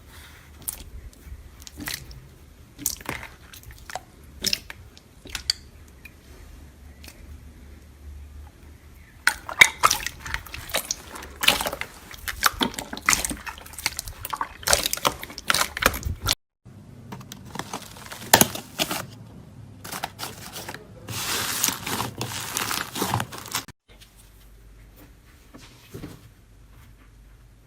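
Hands squishing and working slime, making irregular sticky clicks, pops and crackles. It comes in short clips that cut off abruptly, about two thirds of the way through and again near the end.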